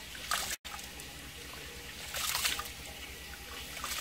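Rice being washed by hand in water in a bamboo basket: wet swishing and splashing of water and grains, with louder surges around two seconds in and near the end. The sound breaks off briefly about half a second in.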